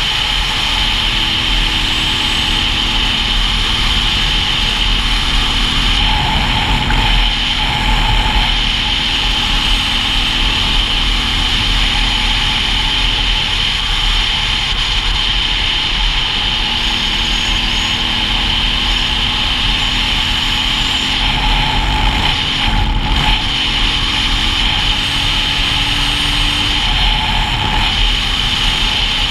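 Single-cylinder dual-sport motorcycle engine running at a steady riding speed, mixed with steady wind rush on the action-camera microphone.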